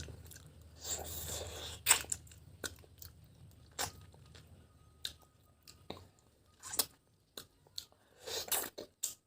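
A person eating, chewing with scattered sharp mouth clicks and smacks, with a brief crunch now and then.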